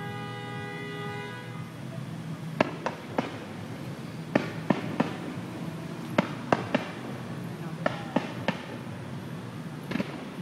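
Aerial fireworks exploding: sharp bangs in quick groups of three, about a dozen in all, with a last single bang near the end.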